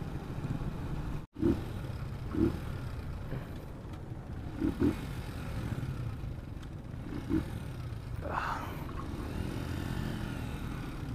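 Motorcycle engine running at low road speed with wind rumble on the rider's camera mic, with a few short louder bursts along the way.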